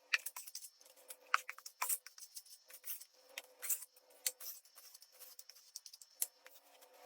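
Hand tools working on drywall: a quick, irregular series of faint scrapes and clicks.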